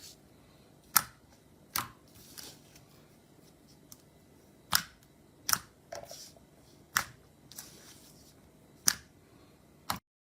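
Slime being pressed and played with by hand, making sharp, crisp pops about seven times at irregular intervals, with soft squishing between them.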